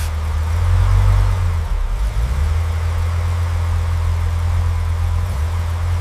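A restored classic Chevrolet's engine idling with a steady low rumble.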